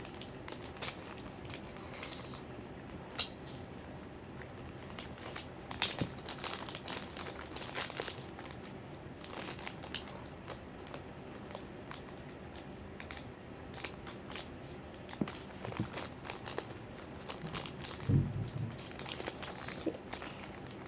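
Toy blind-pack wrappers crinkling and tearing as they are handled and opened by hand, with scattered small clicks and a low thump about 18 seconds in.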